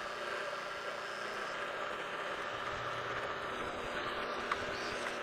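Precision Matthews PM-727 milling machine running in low range as a combination drill-and-tap bit cuts and taps a hole through a metal plate: a steady, even machine hum with steady tones.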